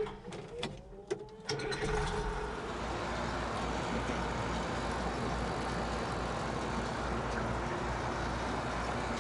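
Case 2090 tractor's diesel engine cranked by the starter, catching about a second and a half in, then running steadily.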